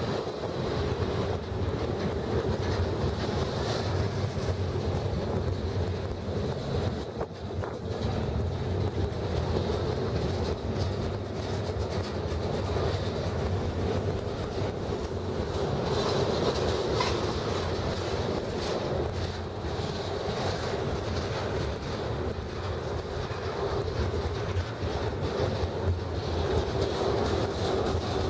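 Double-stack intermodal container cars of a BNSF freight train rolling past close by: steady rumble of steel wheels on rail with a continuous clickety-clack over the joints.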